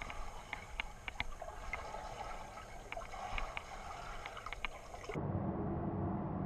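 Underwater sound of a swimmer's front crawl arm stroke in a pool: muffled water with scattered small clicks. About five seconds in it cuts to the sound above the water, a steady low hum.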